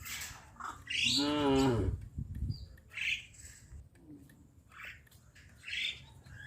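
A cow mooing once, a drawn-out call of about a second starting about a second in, with short bird chirps after it.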